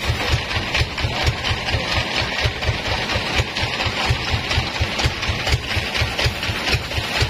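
Large vertical band saw running and cutting through a wooden block. A steady hiss sits over a low, even throb of about six beats a second from the machine's drive.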